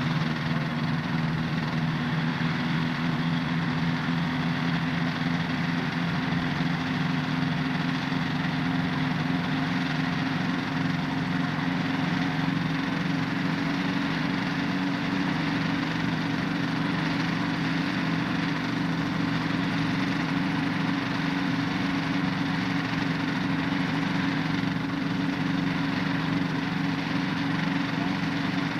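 Engines of a homebuilt experimental helicopter running steadily at a constant speed.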